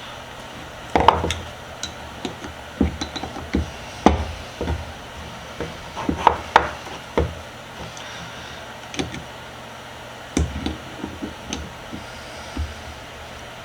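Needle-nose pliers working a small retaining washer back into its slot on a mini vise: irregular sharp metal clicks and knocks, tool against the vise parts.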